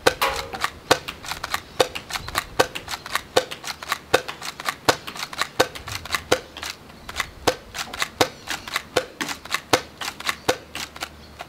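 QWK Edge spring-powered Nerf dart pistol fired over and over, its bolt racked by hand between shots with no battery driving it: about fifteen shots, one roughly every three quarters of a second, each with sharp clicks of the bolt and spring.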